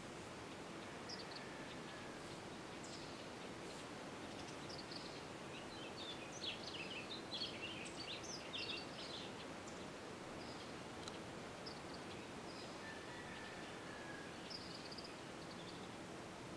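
Orchard oriole singing: scattered high chirps, then a rapid jumbled run of varied notes about six to nine seconds in, over a steady background hiss with a faint low hum.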